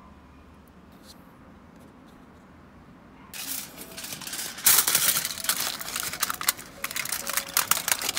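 Aluminium foil crinkling and crackling as it is pressed and crimped by hand over the rims of paper cups, starting about three seconds in after a quiet start.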